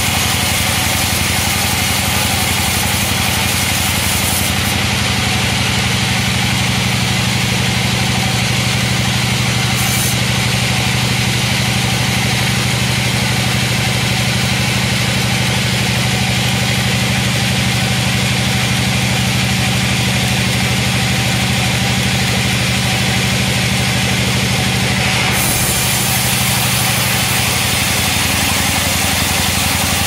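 Large band sawmill running steadily, its blade sawing through a log of old coconut wood, with a steady low hum from the drive. The sound changes a little about four to five seconds in and again near the end.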